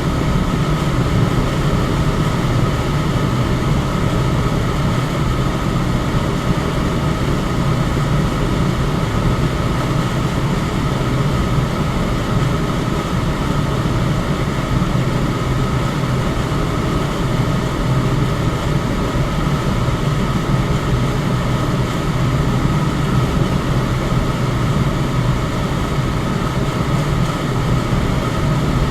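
Electric fan running steadily: an even rush of air over a low hum, with a faint steady whine on top.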